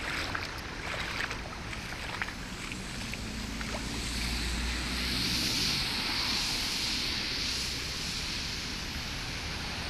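Feet splashing through shallow floodwater for the first couple of seconds, then walking on a wet road against a steady outdoor rush of wind and wet-road traffic noise. The rush swells about four seconds in, as of a vehicle passing on the wet road, and eases back after about seven seconds.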